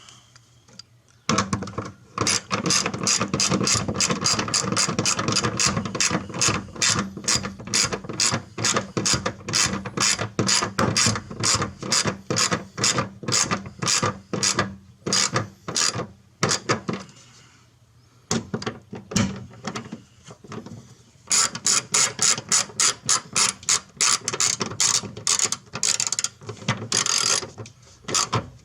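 Ratchet wrench clicking rapidly as it snugs up the taillight mounting nuts, in two long runs with a pause of a few seconds about two-thirds of the way through.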